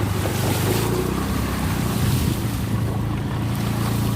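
Vehicle engine running steadily while moving through floodwater, with water rushing and wind buffeting the microphone.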